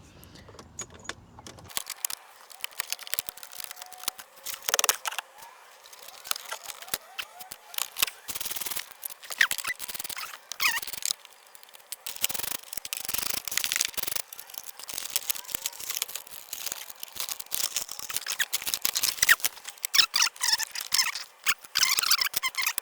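Plastic dash trim panels being pried out of a car interior: a string of clicks, snaps and scrapes from clips and panels, with a few short squeaks of plastic rubbing on plastic.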